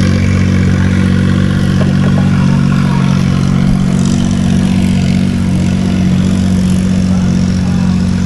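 Small boat engine idling steadily: an even, unbroken low hum.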